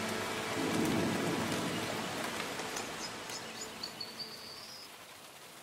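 Steady rain falling on a pond and wet vegetation, a soft even hiss with scattered drips that slowly fades. A few high, thin chirps come in about three seconds in.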